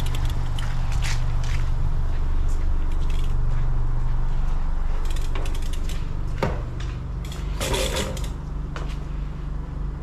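A BMX bike being wheeled over concrete: irregular clicks and rattles from the bike, loudest about eight seconds in, over a steady low hum.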